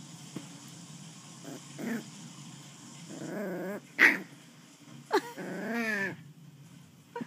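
West Highland white terrier puppy growling in play in several short bouts, with one short sharp bark, the loudest sound, about four seconds in.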